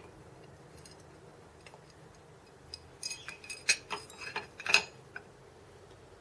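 Metal parts and tools being handled on a workbench: a quick run of about a dozen sharp clicks and clinks over two seconds, starting about halfway through.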